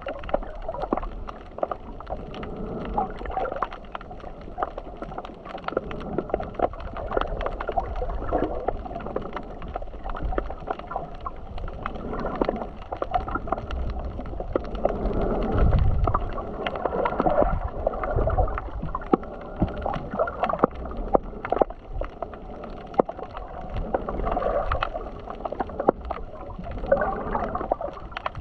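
Sea water sloshing and gurgling, swelling and fading irregularly, with many sharp clicks and knocks.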